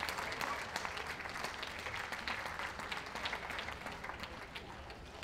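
Audience applauding, the clapping dying away gradually.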